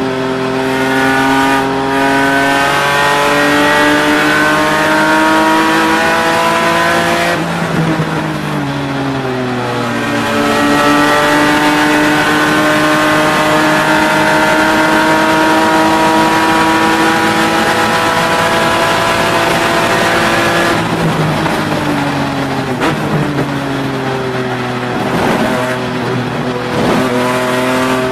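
BMW E36 race car's engine heard from inside the cockpit at racing speed, climbing in pitch under throttle, easing off about eight seconds in, then pulling up again for a long stretch before dropping away with lifts and downshifts in the last several seconds.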